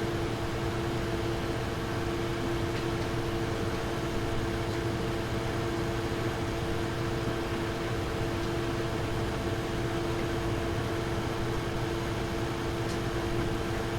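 Nvidia GeForce RTX Super graphics card fans running at a steady speed under a custom fan setting: an even airy whoosh with a constant two-note hum, with no rise or fall in speed.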